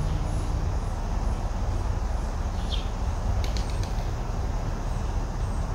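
Steady low outdoor background rumble with faint high-pitched chirping and a couple of light clicks about three and a half seconds in.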